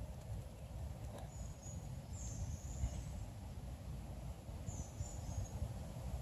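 Quiet woodland ambience: a steady low rumble with high, thin bird calls, once about two seconds in and again about five seconds in.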